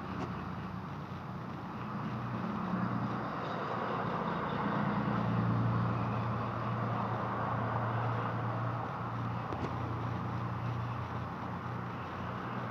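Steady engine drone with a low hum that swells over a few seconds and eases off again.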